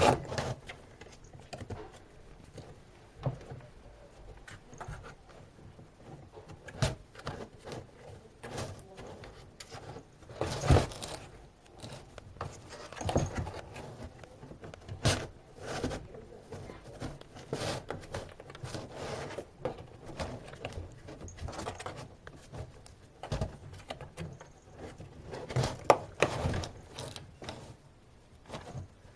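A cat scrabbling and clambering at a box, making irregular knocks, thumps and rustling scrapes, with a few sharper bumps scattered through.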